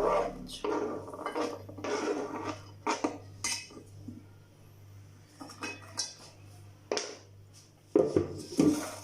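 Metal utensils clinking and scraping against dishes and a pot in short, irregular clatters, as chopped garlic is moved into the pot with dried figs; the loudest clatters come near the end. A low steady hum runs underneath.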